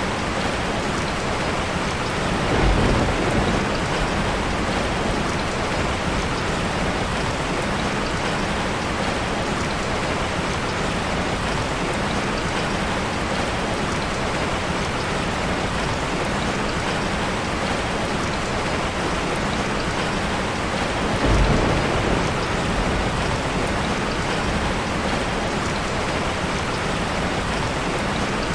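Steady rain falling, with two brief rumbles of thunder: one about three seconds in and one about twenty-one seconds in.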